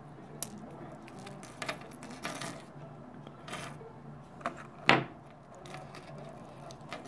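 Small metal clicks and taps of a snap swivel and stainless steel wire leader being handled while a hard plastic crankbait is clipped on, with one sharper knock about five seconds in.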